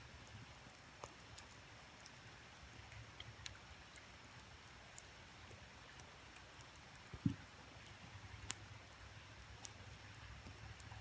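Wood campfire crackling: scattered sharp pops and snaps, the loudest about seven seconds in and another a second later, over the faint steady rush of a creek.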